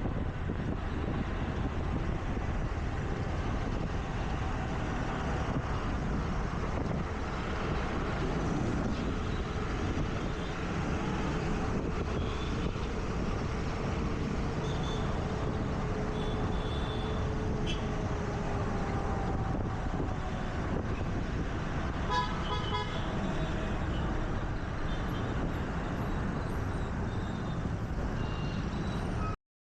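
Ride on a scooter in city traffic: steady wind, road and engine noise with surrounding traffic, and a horn honking briefly about two-thirds of the way through. The sound cuts off abruptly just before the end.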